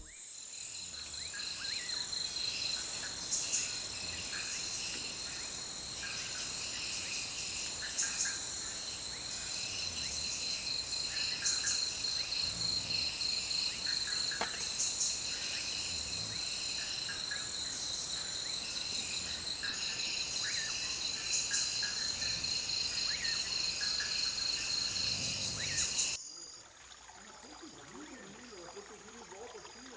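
Dense chorus of forest insects such as crickets and katydids: a steady high-pitched trill under repeated pulsing calls. It cuts off abruptly about 26 seconds in, leaving a much quieter background.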